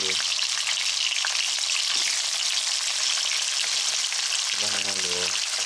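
Hot oil sizzling steadily with fine crackles in a wok as sliced fish cake and halved fish balls fry.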